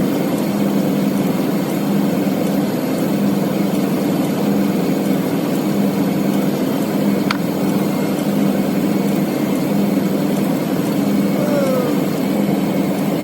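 2000 Ford F-250 engine idling steadily with the A/C running, while the empty system is being charged from a refrigerant can. A single sharp tick comes about seven seconds in.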